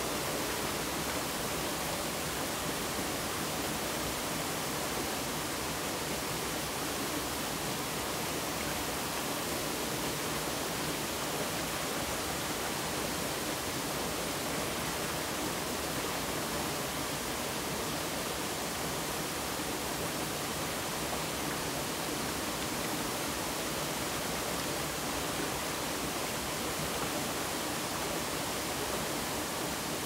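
Mountain valley stream, its water rushing in a steady, unbroken hiss with no changes.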